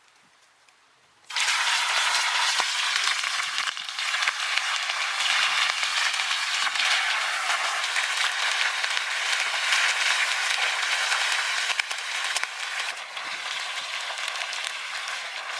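Chicken thighs deep-frying in a pan of hot oil: a loud, steady sizzle full of fine crackles that starts suddenly about a second in.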